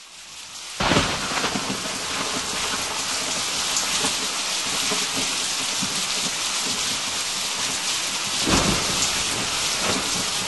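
Steady rain falling, fading in at the start, with a sudden clap of thunder about a second in and another roll of thunder near the end.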